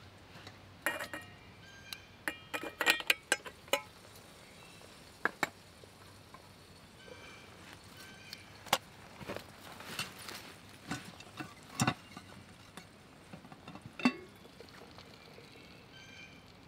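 Stainless steel camp pots and pans clinking and knocking as they are handled with a pot gripper: a run of sharp metallic clinks, some ringing briefly, busiest in the first few seconds and again in the middle, with one loud clink near the end.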